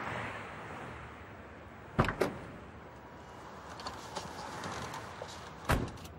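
SUV door handled: a sharp double clunk about two seconds in as the door is unlatched and opened, a few light clicks, then another clunk near the end as it is pushed shut.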